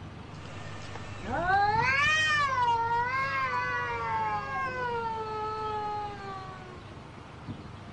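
A cat's long, drawn-out yowl that rises sharply, then wavers and slowly sinks in pitch over about five seconds. It is the warning caterwaul of a cat in a face-off with another cat.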